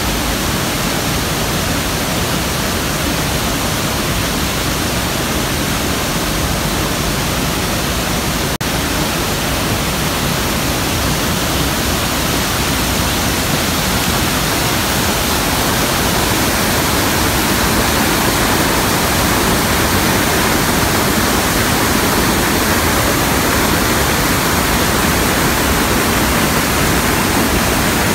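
Iguaçu Falls plunging close by: a loud, steady, unbroken rush of falling water that grows slightly louder over the second half.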